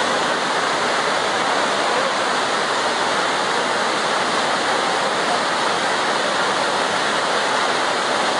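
Steady loud rushing of a river in flood, the water running high and fast.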